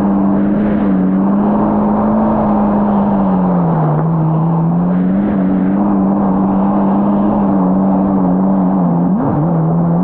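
Yamaha GP1800R SVHO jet ski's supercharged engine running at cruising speed, a steady drone that sags a little about four seconds in and climbs back, over the rush of water and wind.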